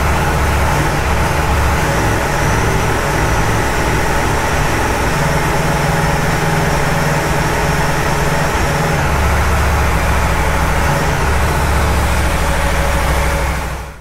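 Aprilia Tuono V4 Factory's 1,077 cc V4 engine idling steadily, its low note shifting slightly now and then. The sound cuts off sharply near the end.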